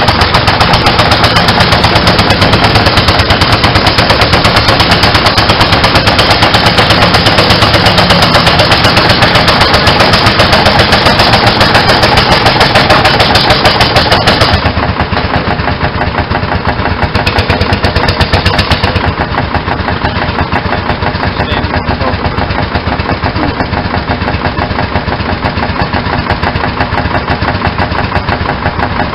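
Vintage tractor engine running at full throttle under the heavy load of a tractor pull, its exhaust a loud, rapid, staccato beat. About halfway through the throttle comes off and the engine drops to a quieter, slower running.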